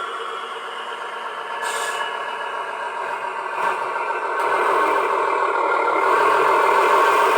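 Radio-controlled model truck running, with a steady mechanical drone that grows louder about four and a half seconds in. A short hiss comes about two seconds in.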